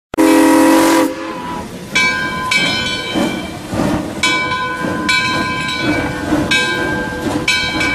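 A locomotive horn sounds one loud chord blast for about a second, then a train runs on with a ringing tone that comes back roughly every second.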